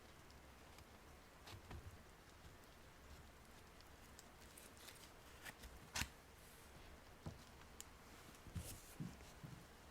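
Quiet handling of small desk items: scattered soft taps and clicks, with a sharper click about six seconds in and a few more near the end.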